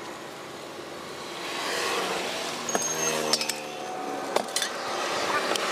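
Water poured from a steel jug into a glass, with glass and steel vessels clinking a few times around the middle. A vehicle passes on the road behind.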